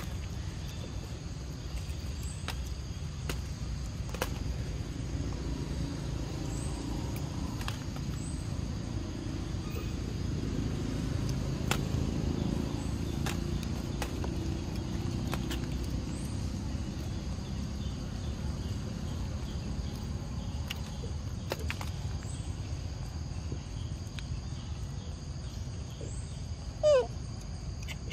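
Outdoor ambience with a steady low rumble, scattered faint clicks and a few faint high chirps while a monkey takes and eats peanuts from a hand. Near the end comes one short, loud call that falls sharply in pitch.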